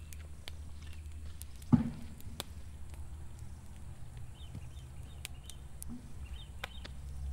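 Wood campfire crackling with scattered sharp pops over a steady low rumble, and one loud knock about two seconds in as a wooden fish skewer is handled at the fire.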